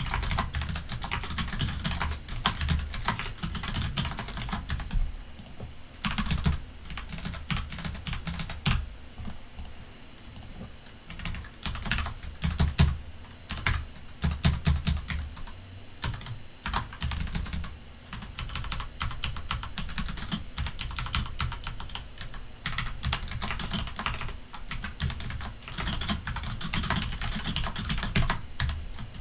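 Typing on a computer keyboard: rapid, irregular key clicks in runs with short pauses between them.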